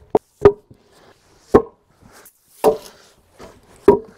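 Heavy wooden 4x6 timbers being set down and knocked into place on a cribbing stack: about five sharp, hollow wooden knocks, irregularly spaced, the loudest about half a second in.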